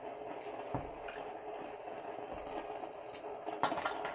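Faint clicks and clinks of metal fidget spinners being handled and put down on a table, with a few sharper clicks near the end.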